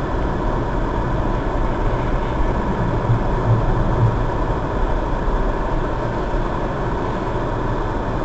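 Steady driving noise of a car heard from inside its cabin: engine and tyre rumble as it drives slowly through a turn.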